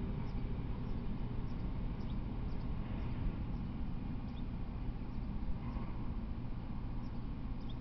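A low, steady rumble with short, faint, high chirps of small birds, one every half second or so.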